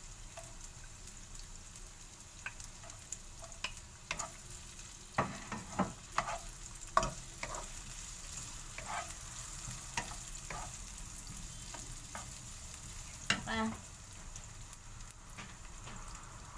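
Chorizo, carrots and onions sizzling in a non-stick frying pan with a steady hiss, while a wooden spatula stirs and scrapes against the pan in scattered strokes, with a short rattling knock about three-quarters of the way in.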